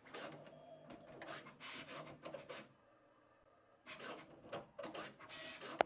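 Bambu Lab H2C's hotend rack and tool changer at work, swapping induction hotends in turn during the hotend reading routine: a run of short mechanical movements and clicks, with a pause of about a second in the middle.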